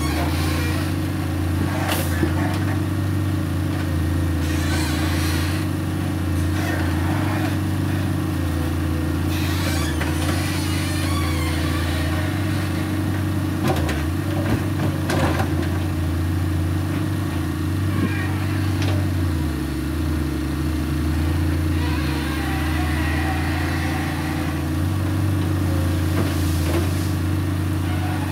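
Wheeled hydraulic excavator's diesel engine running steadily as the boom and bucket work, its low note dipping and recovering a few times as the hydraulics take load. A few sharp knocks from the bucket or machinery come through, one about two seconds in and a couple around the middle.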